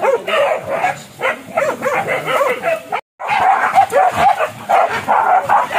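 A pack of hunting dogs barking and yelping in rapid succession, with a brief dropout about three seconds in.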